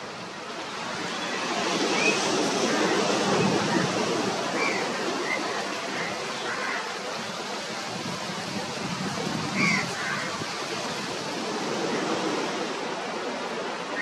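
Small sea waves breaking and washing up a sand beach, a steady surf that swells and eases. A few short high calls sound over it, the loudest near ten seconds in.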